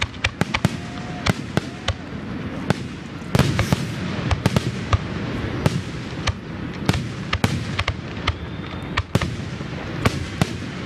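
Fireworks display: a rapid series of sharp cracks and bangs, several a second, over a continuous rumble of explosions that swells about three seconds in.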